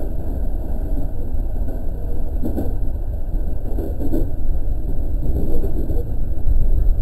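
Steady low rumble of an E217-series electric train running on the track, heard from inside the leading car.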